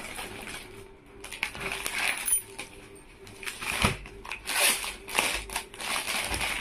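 Rustling and crinkling of a packed suit's wrapping and cloth being handled and unfolded, in irregular bursts, with a dull thump about four seconds in.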